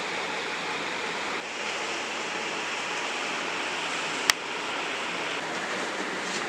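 Steady rushing background noise, with one sharp click a little over four seconds in.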